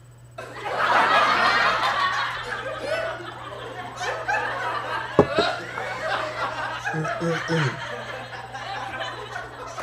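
Breathy, stifled laughter, loudest in the first couple of seconds and then trailing on more quietly, with a sharp click a little after five seconds in.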